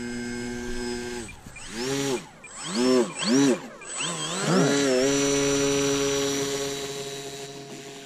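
The electric motor and propeller of a small RC seaplane, an 1100 kV motor, taxiing on grass while being turned around. It runs at a steady whine, is blipped up and down several times in quick rising-and-falling surges a couple of seconds in, then settles to a steady pitch that slowly fades.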